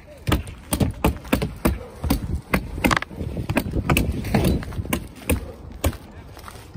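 Footsteps walking across an asphalt-shingled roof, about two steps a second.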